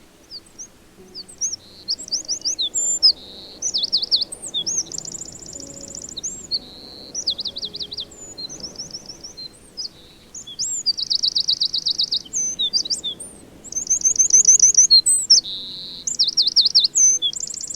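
Eurasian wren singing: fast, high trills and rattling runs of notes, one loud phrase after another, starting about half a second in.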